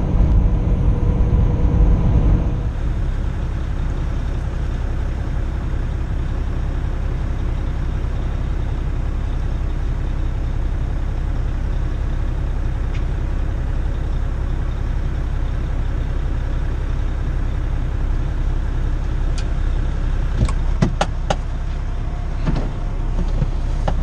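Semi-truck diesel engine heard from inside the cab, first with road noise while driving, then, after a change about two seconds in, running steadily on its own. A few sharp clicks near the end.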